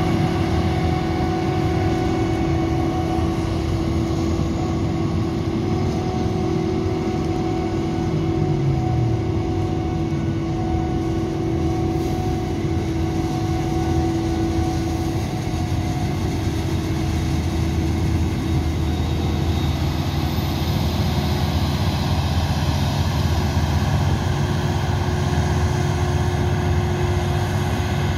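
Claas Jaguar 980 forage harvester chopping maize, with a Fendt 936 tractor and its Claas Cargos wagon running alongside: a steady, loud heavy-machinery drone with a constant hum over it. The low engine note dips briefly about eight seconds in.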